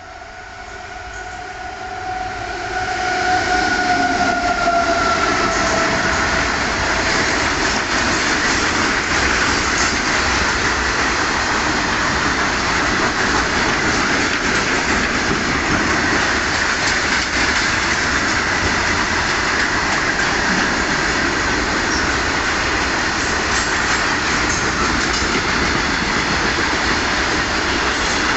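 Train approaching and passing close by, sounding its horn as it comes, the horn note dipping slightly in pitch before it fades. This gives way to a loud, steady rush and clatter of wheels and carriages on the rails.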